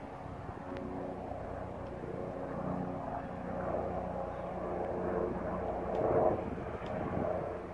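Helicopter flying overhead: a steady engine and rotor drone that grows louder and peaks about six seconds in.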